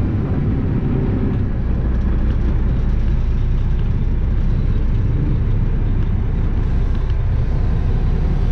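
Freightliner semi-truck's diesel engine running steadily under way, heard from inside the cab as a continuous low sound with road noise.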